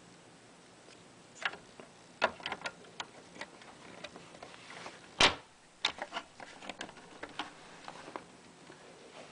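Irregular small clicks and taps of hardware being handled while a hard drive is fitted into a media player's casing, with one louder knock about five seconds in.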